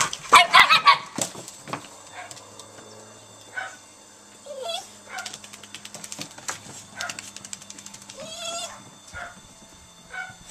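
Italian Greyhound puppies giving short yips and whines while playing, loudest in a quick burst at the start, with one longer whine near the end. Light clicks, likely from their claws on the deck boards, are heard throughout.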